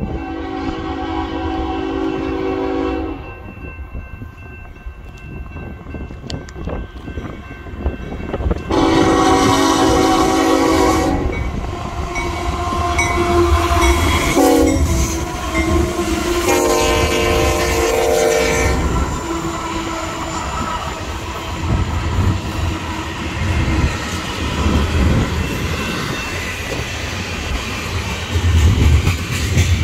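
Diesel train horn sounding the grade-crossing signal, long, long, short, long, as a Union Pacific intermodal train led by GE diesel locomotives approaches. The locomotives then pass with a low rumble, followed by double-stack container cars rolling by with wheels clacking on the rails.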